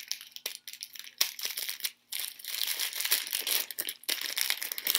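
Paper wrapping crinkling and rustling as it is unwrapped by hand. Sparse crackles for the first two seconds, then denser, almost continuous crinkling.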